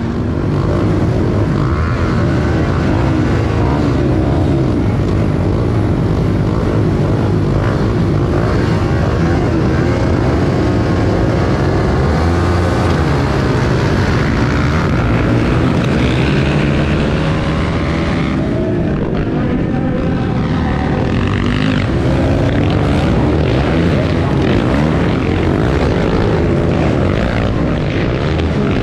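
Racing dirt bike's engine heard up close from the bike itself, revving hard and rising and falling in pitch as the rider works the throttle and gears, with other bikes running nearby.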